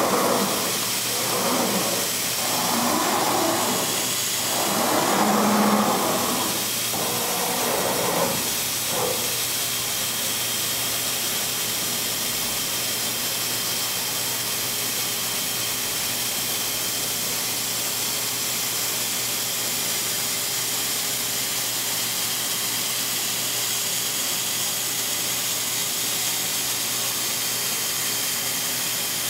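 Thermwood C-40 3-axis CNC router running, its head traversing over the table: a steady, even hiss with a faint hum under it. There are louder, uneven swells of machine noise for the first several seconds.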